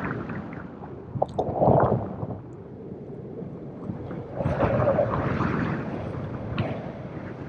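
Wind noise from the airflow of a paraglider in flight buffeting the camera microphone: a rushing, rumbling noise that swells about two seconds in and again for a couple of seconds from about four and a half seconds in.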